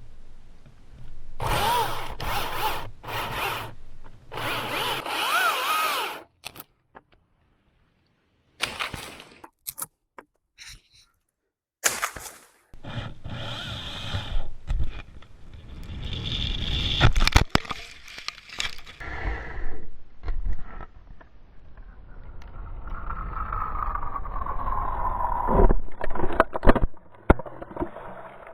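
Milwaukee M18 battery chainsaw cutting into a dead pine trunk in repeated bursts with short pauses between, making an open-face notch. Near the end the saw's whine slowly falls in pitch, and a few sharp cracks stand out.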